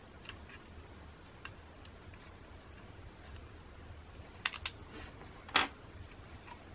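Small, scattered clicks and ticks of a tool and fingers working on the opened camera's plastic and metal parts while the LCD flex cables are lifted out. Faint ones come early, a few close together about four and a half seconds in, and the sharpest click about five and a half seconds in.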